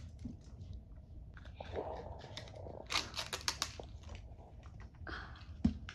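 Small paper and plastic packaging crinkling and crackling in a child's fingers as a tiny toy is unwrapped, with a cluster of sharper crinkles about three seconds in.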